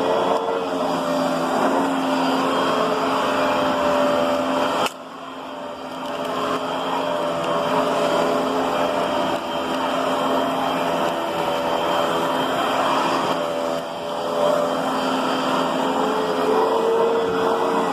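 Riccar Brilliance upright vacuum cleaner running steadily, its motor tone wavering a little in pitch. About five seconds in the sound drops off suddenly, then climbs back to full level over a second or two.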